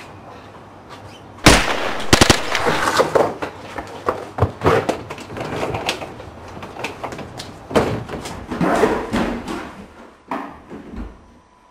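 A sudden loud bang about a second and a half in, then a quick burst of four or five sharp cracks, followed by a long stretch of irregular bangs and knocks that dies away near the end.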